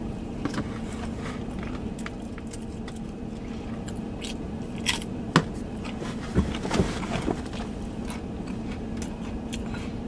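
Close-up mouth sounds of biting into and chewing a slice of Little Caesars thin-crust pizza, with scattered small clicks and a couple of sharper bite sounds around the middle. A steady low hum runs underneath.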